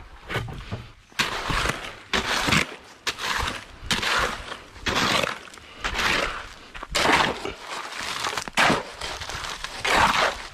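A shovel scraping and turning wet concrete mix of gravel and cement on the ground, with gritty strokes about once a second.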